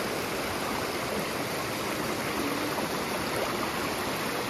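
Shallow stream cascading over rocks: a steady, even rush of flowing water.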